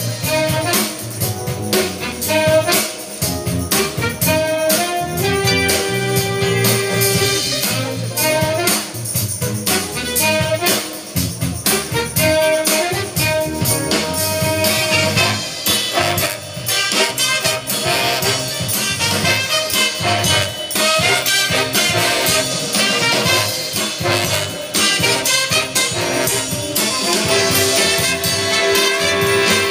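A jazz band playing an up-tempo tune: saxophones and brass holding notes over a steady drum kit.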